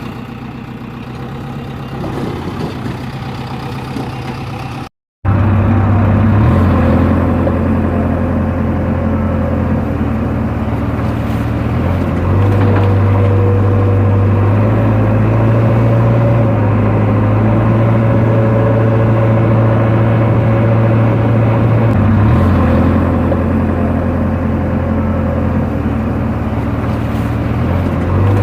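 Heavy diesel engine running under varying load, its low drone stepping up and down in speed several times. The sound cuts out briefly about five seconds in and returns louder.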